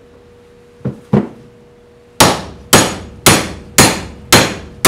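Hammer blows on a steel link-pin bushing in a VW-type front spindle held in a bench vise, driving the bushing through its bore. Two light taps come about a second in, then hard, evenly spaced blows at about two a second, each with a short metallic ring.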